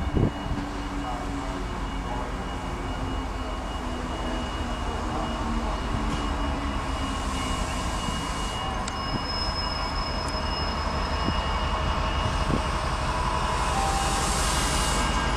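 Freightliner Class 70 diesel locomotive hauling a container train slowly past, its engine running steadily with the wagons rolling on the rails. The sound grows gradually louder as the train draws nearer, and a thin high tone rings briefly about nine seconds in.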